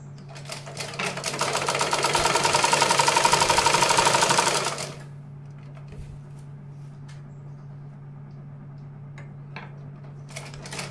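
Usha sewing machine stitching through cloth in a fast, even run for about three and a half seconds, then stopping abruptly. A few light clicks follow as the machine sits still.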